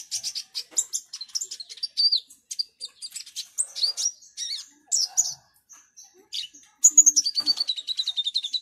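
Caged kolibri ninja (purple-throated sunbird) singing hard, a fast stream of high chirps and twitters. About seven seconds in it breaks into a rapid trill that falls in pitch. This is the excited 'ngobra' song of a bird in fighting form.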